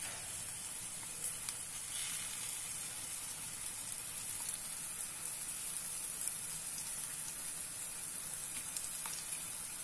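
Ground moong dal paste sizzling steadily in hot oil in a non-stick frying pan as its water cooks off, with a few faint light clicks.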